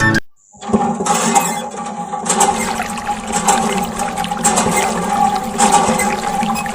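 Water gushing and splashing steadily, with the steady hum of a small electric pump motor underneath, starting just under a second in.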